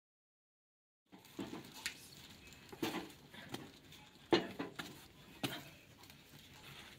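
About a second of silence, then irregular light knocks and clanks from a rickety metal frame being stood on and climbed, the loudest a little past the middle.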